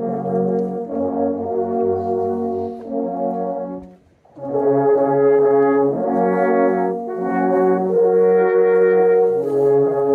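Alphorn ensemble playing held chords in harmony, several long wooden horns sounding together. The playing breaks off briefly about four seconds in, then resumes louder.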